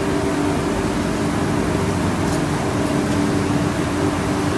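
Steady rushing drone of commercial kitchen equipment, with a constant low hum under it.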